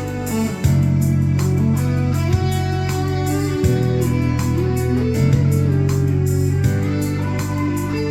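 Music: a guitar played over sustained keyboard chords with bass and a steady beat.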